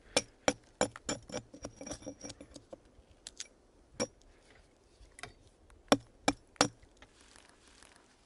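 Knife blade cutting into a dead, resinous conifer stump, shaving off wood curls: a quick run of sharp knocks for the first few seconds, then a handful of spaced, harder strokes.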